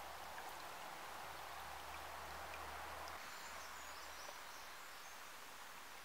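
Small, shallow forest stream running over rocks: a faint, steady trickling rush. A low hum lies under it and stops about four seconds in.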